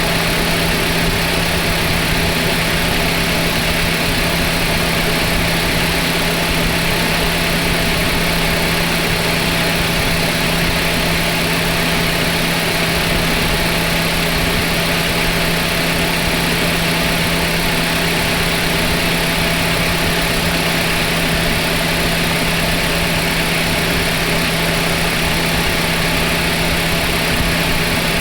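Car engine idling steadily, with a constant hum.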